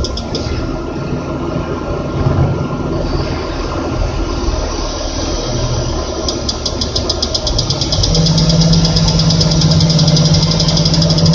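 Crane engine running steadily, joined about six seconds in by the crane's warning beeper sounding in rapid short high beeps.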